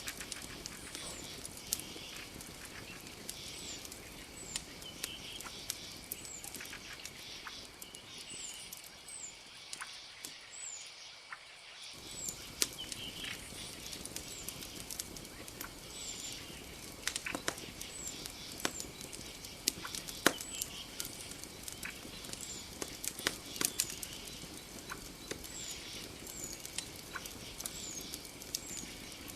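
Campfire crackling, with irregular sharp pops, over night forest ambience. A small creature repeats short high chirps every second or two over a steady high hum.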